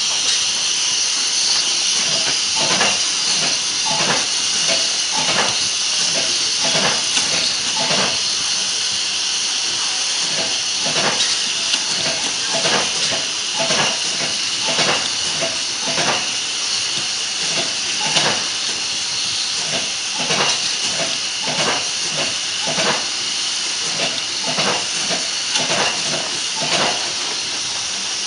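Hot air seam welding and sealing machine running: a steady loud hiss of its hot air blower, with irregular mechanical clicks about once a second.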